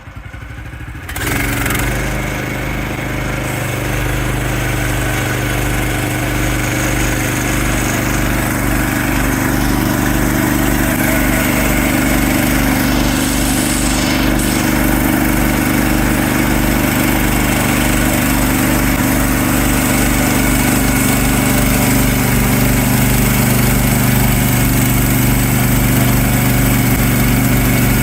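Small gas engine of a Woodland Mills portable sawmill running. It jumps louder about a second in, then runs steadily.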